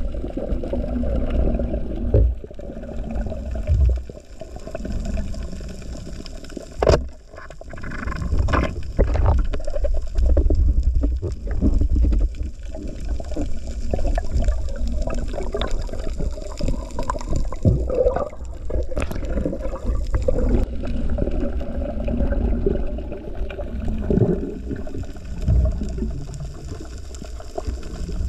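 Underwater water noise as a diver swims: a low, uneven rumble and gurgle of water moving past, with scattered sharp clicks and knocks.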